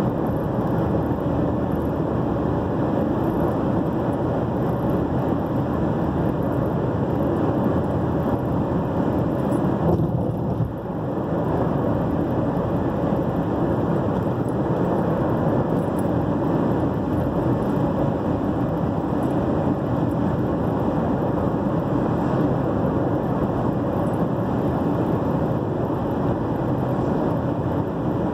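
A car driving at speed on an asphalt highway: steady tyre and engine noise, dipping briefly about ten seconds in.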